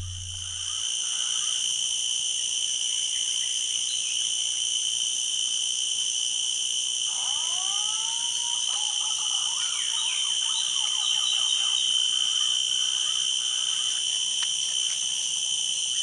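Steady, high-pitched buzzing drone of insects, with a few short whistled bird calls about seven to nine seconds in.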